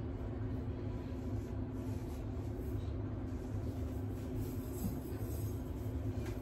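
A steady low hum, like a motor or fan running, unchanged throughout.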